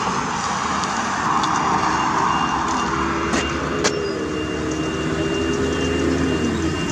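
Road traffic: cars passing with a rushing tyre-and-engine sound. About halfway through, a vehicle's steady engine hum comes in and drops in pitch near the end.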